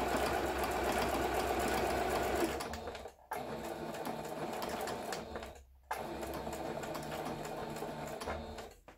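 Singer 7466 computerized household sewing machine stitching fabric, its motor and needle mechanism running steadily in three spells, stopping briefly about three seconds in and again a little before six seconds. This is a test-sewing run after repair, and the machine is stitching normally.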